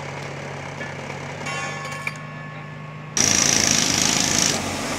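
Diesel engine of a New Holland wheeled excavator running steadily with a low hum. About three seconds in, a much louder, harsh machine noise with a strong hiss cuts in abruptly.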